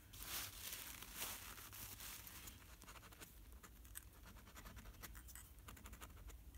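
Faint scratching of a vintage Centropen fountain pen's steel nib dragged across paper in short strokes, loudest about half a second and a second in. The nib is writing nearly dry and skipping, which the writer puts down to ink drying in the section or not being delivered.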